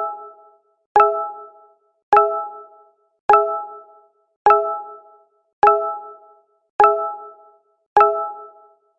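Google Hangouts notification chime: a short, sharp chime of a few notes together that dies away quickly, repeating evenly about once every 1.2 seconds.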